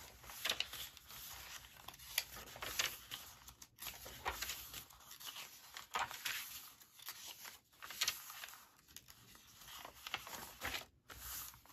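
Coffee-dyed paper pages rustling and crinkling as they are turned by hand, in a string of irregular swishes and crackles.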